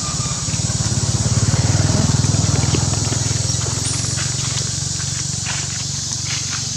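A small engine running steadily at idle, swelling a little in the first couple of seconds and then easing, over a steady high hiss. A few soft clicks and rustles, like dry leaves being stepped on, come in the second half.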